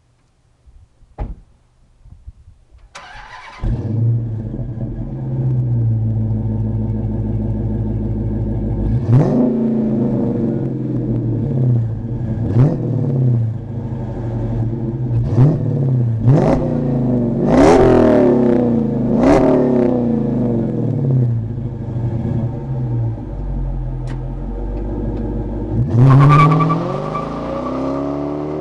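Dodge Challenger R/T's 5.7-litre Hemi V8 breathing through a Flowmaster Super 44 Series exhaust: it starts about three seconds in and settles into an idle. Between about nine and twenty seconds in, it is blipped in about seven short revs. Near the end it revs up hard as the car accelerates away.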